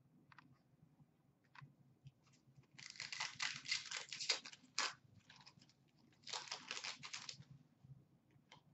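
Foil wrapper of an Upper Deck hockey card pack being torn open and crinkled by hand, in two bursts of crackling a second or two long, about a second apart, with a few small clicks of card handling around them.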